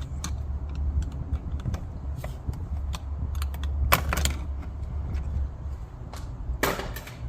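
Scattered small clicks and knocks of hand tools and plastic door trim being handled, with two louder clattering rattles about four seconds in and near the end, over a steady low rumble.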